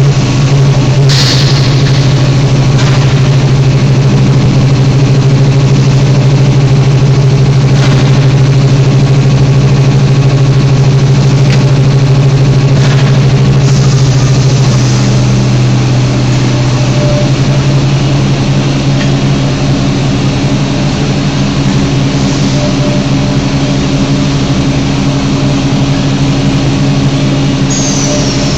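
Steady, loud machinery hum of a roller hearth furnace line, with a few sharp clicks. The hum's tones shift about halfway through.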